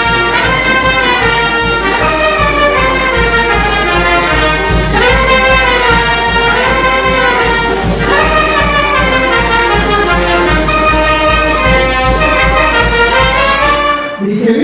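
Brass band playing a dance tune, trumpets carrying the melody over a steady low beat. The music breaks off near the end.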